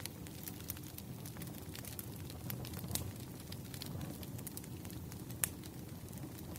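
Wood campfire burning, with a low steady rumble of flame and irregular sharp crackles and pops of splitting wood, a louder pop about five and a half seconds in.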